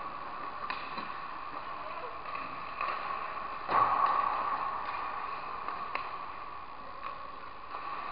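Ice hockey skates scraping and carving on rink ice close to the net, with a few sharp clicks of sticks and pucks; a loud skate scrape a little under four seconds in, fading away over the next few seconds.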